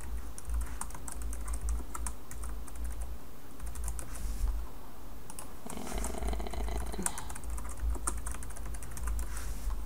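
Computer keyboard being typed on: a run of quick, irregular key clicks, over a low steady hum.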